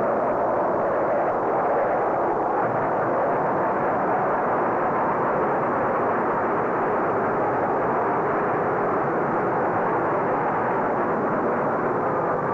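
Jet fighter aircraft flying over in formation: a steady, even rushing engine noise.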